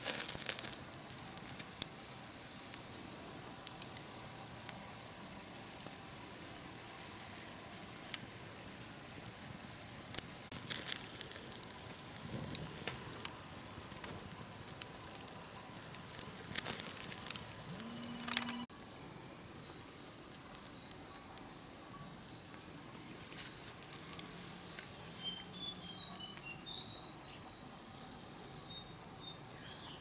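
Steady high-pitched insect drone, with scattered crackles and pops from a wood-ember fire roasting a spitted bird. A few short high chirps come near the end.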